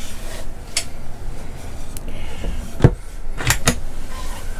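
Small wooden wall cupboard door with a push-button catch being opened and shut: a light knock about a second in, a dull thump about three seconds in, then two quick clicks.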